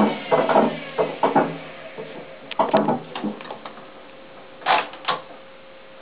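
Hoover Time Manager H130E washing machine starting a cycle: a handful of sharp clicks and knocks over a faint steady hum.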